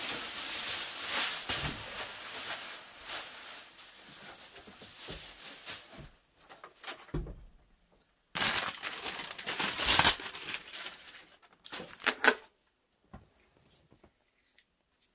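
Thin plastic wrapping crinkling and rustling as it is pulled off a refrigerator and handled. It comes in three spells with pauses between, the longest first, and falls nearly silent near the end.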